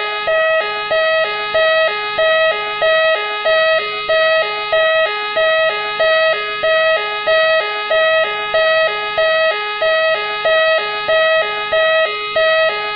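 Machine X police car siren sounding continuously: two pitches alternating in an even, repeating cycle about one and a half times a second.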